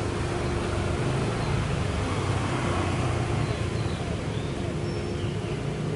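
Steady outdoor background noise of distant road traffic, a continuous low rumble with an on-and-off hum, and a few faint high chirps in the second half.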